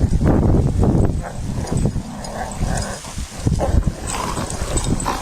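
Airedale terriers growling and barking as they play-fight, with wind rumbling on the microphone in the first second or so.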